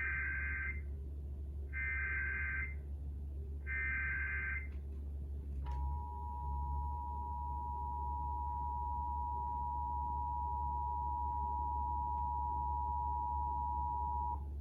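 Emergency Alert System broadcast tones: three short buzzy SAME data header bursts about two seconds apart, then the EAS two-tone attention signal, a steady dual tone held for about nine seconds that stops abruptly near the end.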